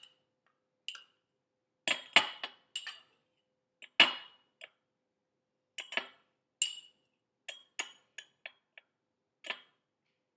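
A spoon clinking and tapping against a mug while butter is spooned in: a string of separate sharp clinks and knocks, the loudest about four seconds in.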